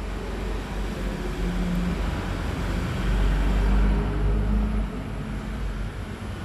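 Low rumble and hiss of background road traffic, swelling loudest about three to four seconds in, as a vehicle passes.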